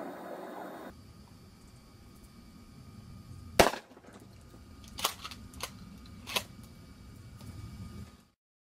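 A single loud blast from a Remington 870 Express pump-action shotgun a few seconds in, with the birdshot load tearing through a drywall panel at close range. Three fainter sharp cracks follow over the next few seconds, and the sound cuts off near the end.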